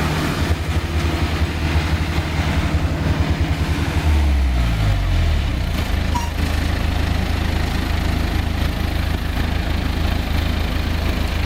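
Mechanical rice harvester's engine running with a pulsing beat, dropping in speed about four seconds in and settling to a steady idle.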